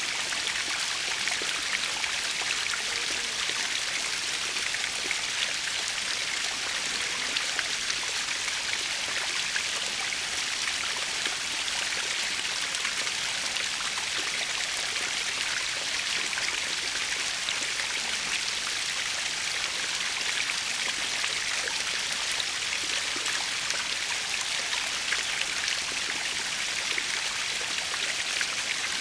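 Small natural waterfall running steadily: an even rushing hiss of falling water, with fine splashing and dripping mixed in.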